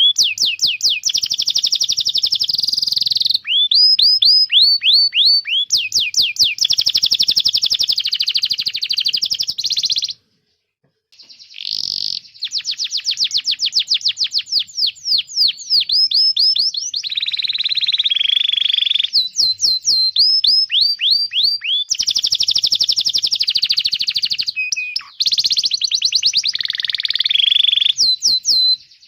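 Domestic canary singing fast trills of repeated downward-sweeping chirps, with rolling passages and several changes of note type. The song breaks off briefly about a third of the way through.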